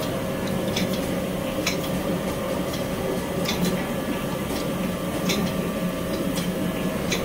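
Oil mill machinery running with a steady hum and a sharp click about once a second, as filtered oil trickles from a filter press's row of taps into a trough.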